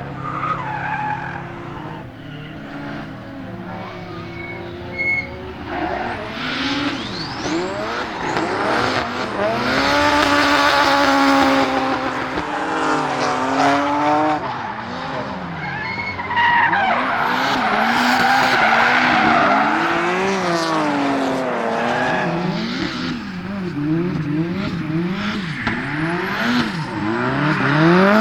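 Turbocharged 4G63 four-cylinder engine of a rear-wheel-drive Mitsubishi Lancer Evo X drift car revving up and down over and over as it drifts, with tyres squealing in long stretches. The engine's up-and-down revs come quicker near the end. The car had an engine misfire that day.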